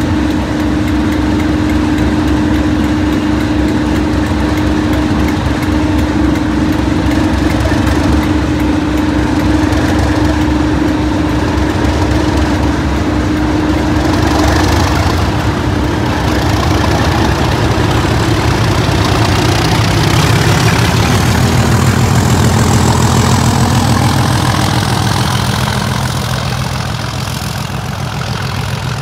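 Diesel train engines running loud and steady with a held hum. About eighteen seconds in they build up, rising in pitch with a rising whine above, then ease off near the end.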